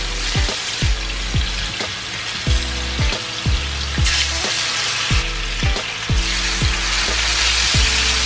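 Red bream pieces sizzling in hot oil in a frying pan, the sizzle growing louder in the second half as more pieces go in. Background music with a steady beat plays underneath.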